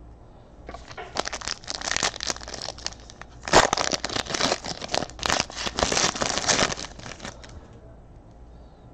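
Foil wrapper of a Panini Chronicles baseball card pack crinkling and tearing as it is ripped open, in a run of crackling for about seven seconds with a sharp loud rip partway through.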